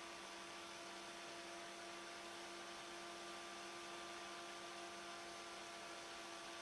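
Turbomolecular pump running after its hall-sensor repair: a faint, steady hum made of several fixed tones over a light hiss, with no change in pitch.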